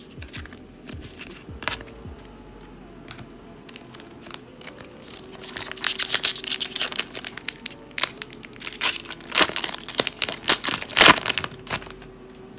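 Wrapper of a 2020-21 Upper Deck Series 2 hockey card pack being torn open and crinkled by hand. It is faint at first and becomes loud and crackly from about halfway through.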